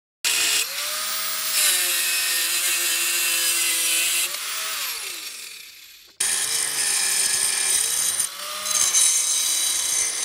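Angle grinder with a cut-off disc cutting through steel plate: the motor spins up and its whine sags as the disc bites, then winds down with a falling pitch about halfway through. After a brief break a second cut follows, the pitch dipping under load and picking up again.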